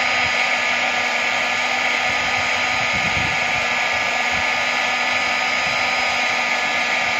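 Hot-air plastic welding gun blowing steadily, a constant rush of hot air with a steady whine from its fan, as it melts a plastic welding rod into the grooved crack of a plastic water tank.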